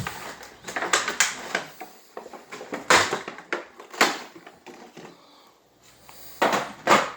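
Packaging being handled and pulled open: irregular rustling and crinkling bursts of cardboard and plastic, loudest a few times in quick scrapes.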